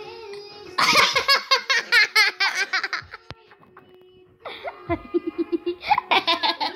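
High-pitched laughter in quick bursts, in two bouts: the first about a second in, the second from about two-thirds of the way through. Faint background music plays under it.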